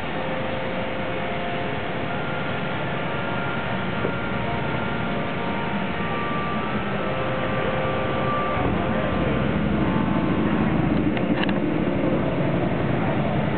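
Reading & Northern 425 steam locomotive standing at rest, hissing steadily as it vents steam, with a few faint steady tones in it. It grows louder and deeper over the last few seconds.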